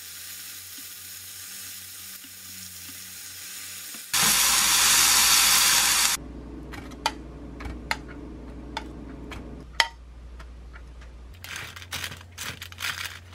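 Pork tenderloin pieces sizzling in a frying pan, turned with tongs. About four seconds in, a much louder hiss lasts for about two seconds, followed by scattered clicks. Near the end a wooden spatula scrapes and taps as it tosses the pork with vegetables in a wire air-fryer basket.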